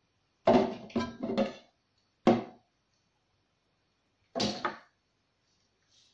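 Clinks and knocks of metal kitchenware, each ringing briefly. There are several in the first couple of seconds, a single sharp strike a little after two seconds, and another about four and a half seconds in.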